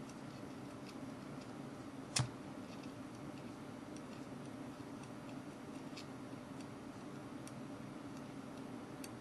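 Faint metal clicks of steel tweezers pressing and flicking the spring contacts of an SD card slot, testing their tension. The clicks come at irregular intervals, with one sharper click about two seconds in, over a low steady hum.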